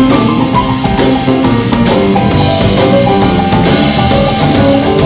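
Live roots band playing an instrumental break: melody instruments over a drum kit keeping a steady beat of about two strikes a second.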